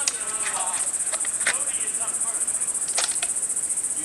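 Steady high-pitched insect chorus, finely pulsing, with a few short sharp cracks, about one and a half and three seconds in.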